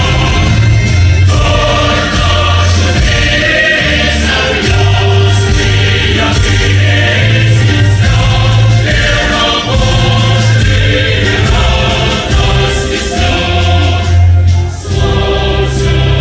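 Choir singing with loud, steady musical accompaniment.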